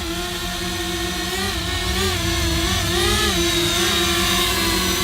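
Parrot Anafi quadcopter's motors and propellers whining as it hovers and slowly turns, the pitch wavering up and down as the motor speeds change.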